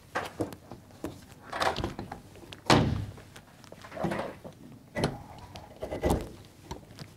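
A series of heavy knocks and thuds, roughly a second apart, the loudest a little before the middle.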